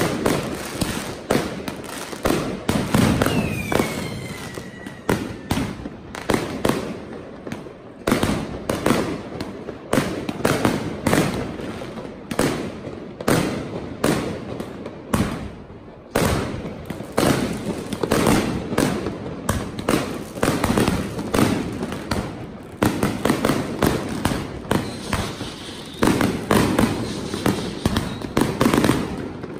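Street fireworks going off without a break: a rapid, dense run of bangs and crackling firecracker reports, with a falling whistle about three seconds in.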